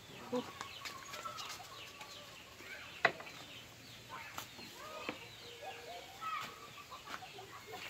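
Chickens clucking faintly in the background, with a few sharp clicks, the loudest about three seconds in.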